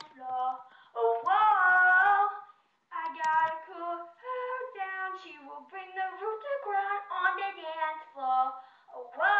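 A young girl singing a tune in a high voice, with a long held note about a second in and a brief pause before the singing carries on.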